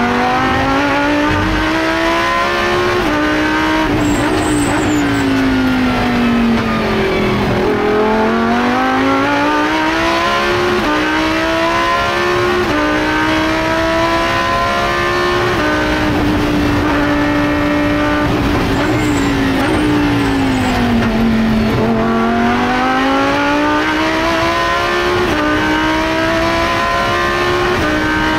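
Lamborghini Huracán Super Trofeo's V10 racing engine at full race pace, heard from inside the cockpit. Its pitch climbs in steps through upshifts of the sequential gearbox, falls steeply twice as the car brakes and downshifts, and holds steady for a few seconds in the middle.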